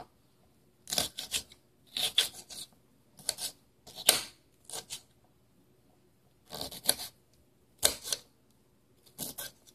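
Kitchen knife chopping a sweet pepper into small pieces on a countertop: irregular clusters of sharp cutting strokes and short scrapes of the blade, with pauses of up to about a second and a half between bursts.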